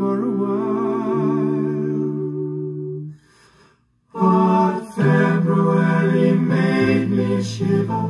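Recorded music played through hi-fi loudspeakers driven by 845 single-ended triode tube amplifiers. Held notes die away about three seconds in, there is near silence for about a second, then the music comes back in.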